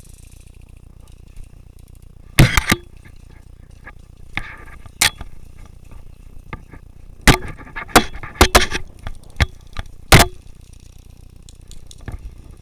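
Airsoft guns firing: sharp snapping shots in short bursts, three or four together about two seconds in, a single shot, then a quicker string of shots and a last loud single shot near the end.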